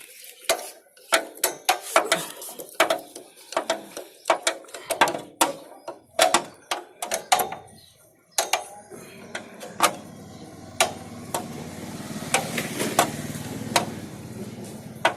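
Metal tools clicking and knocking against motorcycle parts as bolts and a lever are worked loose, in quick irregular strikes. From about eight seconds in, a steady low rumble sets in under a few scattered clicks.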